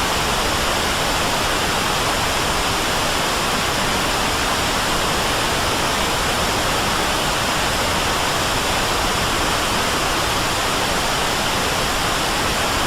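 A loud, steady hiss of noise, even from low to high pitches and unchanging in level, like static or rushing water.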